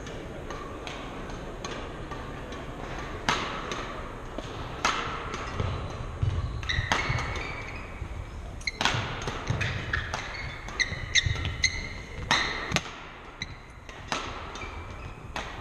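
Badminton rally on a wooden court: several sharp cracks of racket strings hitting the shuttlecock a few seconds apart, with shoes squeaking and feet thudding on the hardwood floor between shots.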